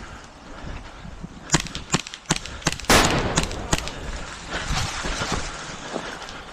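Airsoft guns firing: a run of sharp, spaced shots starting about a second and a half in, with a louder noisy burst about three seconds in.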